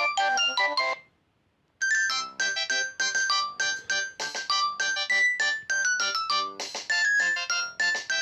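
Philips S200 ringtones playing through a Nokia C2-01's loudspeaker. A fast melody of short, bright synthesized notes stops about a second in, and after a brief pause another ringtone starts with a quick run of high notes.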